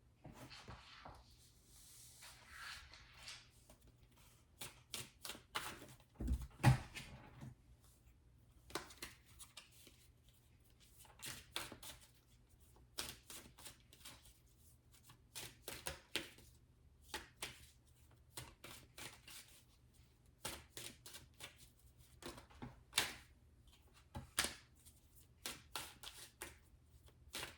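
Tarot cards being shuffled and handled, with a soft sliding shuffle in the first few seconds. Many irregular light snaps and taps of cards follow, with one louder thump about six and a half seconds in.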